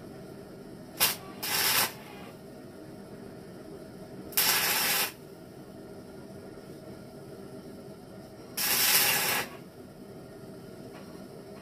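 Tack welding with a Miller Multimatic 200 welder: three short bursts of arc noise, about two, four and a half and nine seconds in, each under a second long, the first preceded by a brief blip. A steady low background noise runs under them.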